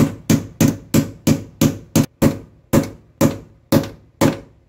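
Short-handled sledgehammer striking a steel bolt under a pickup's body, knocking an existing running-board mounting bolt back through its hole. About a dozen sharp blows with a brief ring, roughly three a second at first, then slowing to about two a second.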